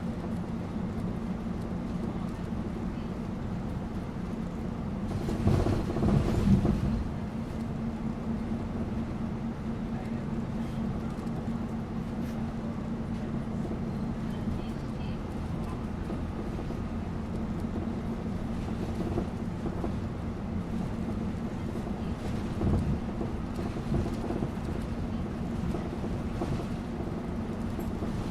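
Steady engine hum and road noise of a bus ride, with a louder rumble about five seconds in that fades by seven.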